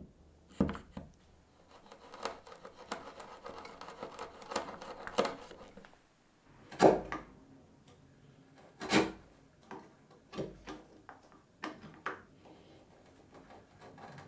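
A chisel paring the edge of an oversized oak lid flush with the side of a wooden pot: a run of short scraping cuts, with two louder strokes past the middle.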